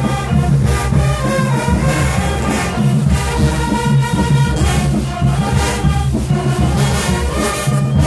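Marching band playing loud live music: brass and sousaphones over a steady drum beat.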